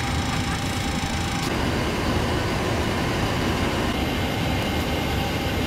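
Steady cockpit background noise of an airliner: a low rumble with a hiss over it. It shifts in tone about a second and a half in.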